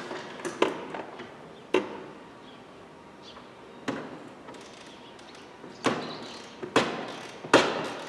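Irregular sharp metallic clicks and knocks from a 1/4-inch flexible-head ratchet wrench and the mechanic's hand working inside a car door, trying to break loose the nut that holds the door mirror. The knocks come singly, a second or two apart, with a few close together near the end.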